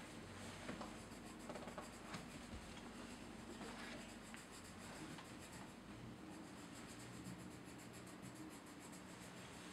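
Pencil crayon scratching faintly on paper as it colours in, in short uneven strokes.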